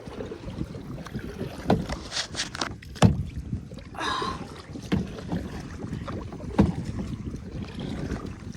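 Kayak being paddled: paddle strokes swishing and splashing in the water, with a sharp knock about every one and a half to two seconds, over wind rumble on the microphone.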